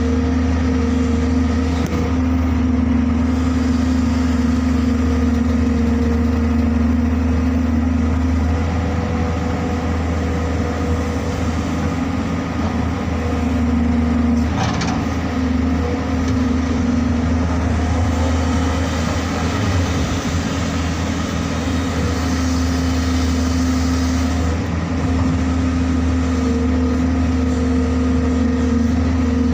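JCB excavator's diesel engine running steadily, its note wavering twice in the middle as it takes load while working, with one sharp clank about fifteen seconds in.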